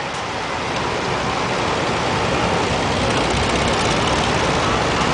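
Vintage farm tractor engine running close by as the tractor drives past, a steady rapid low chugging under a wide hiss that swells as it approaches and then holds.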